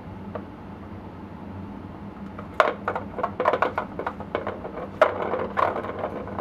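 Round plastic ball-in-track cat toy rattling and clicking irregularly as a kitten bats at it, the ball and plastic clattering in a busy run from about two and a half seconds in.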